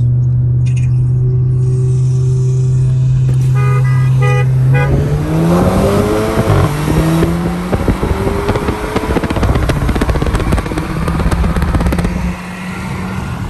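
An MK7 GTI and a Honda Accord 2.0T, both turbocharged four-cylinders, held at steady revs at the line. A quick run of horn toots comes about four seconds in, then both cars launch hard at full throttle, engine pitch climbing and dropping back at each upshift.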